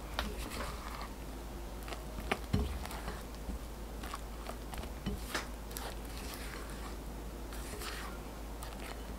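A silicone spatula mixing thick, creamy cake batter in a glass bowl: soft squelching and scraping strokes, with a few sharp taps of the spatula against the glass, the loudest a little over two seconds in.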